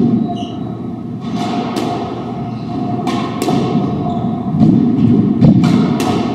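Doubles squash rally: the ball cracking sharply off racquets and the court walls, several knocks about a second apart, over the thud of players' shoes on the hardwood floor.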